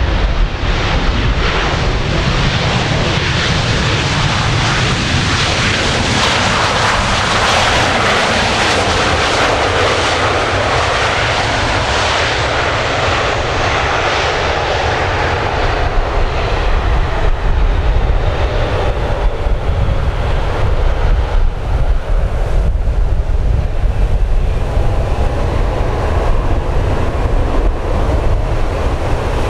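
Boeing 737-800's CFM56 jet engines on the landing rollout: the jet noise swells to a peak about a third of the way in, then a high whine falls steadily in pitch as the engines spool down. Low wind rumble on the microphone.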